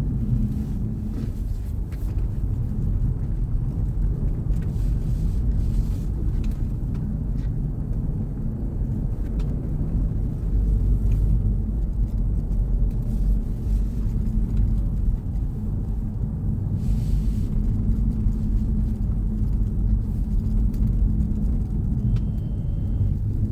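Steady low rumble of a car driving on a snowy road: tyre and engine noise.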